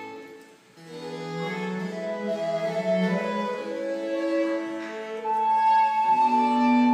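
Live baroque chamber music: recorder, violin, cello and harpsichord playing together. The playing breaks off briefly about half a second in, then resumes, with a long held high note near the end.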